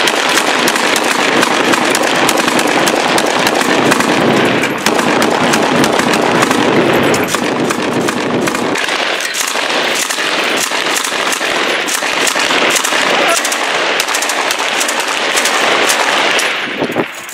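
Loud automatic gunfire in a close firefight, shots coming so fast that they run together almost without a break; it thins out near the end.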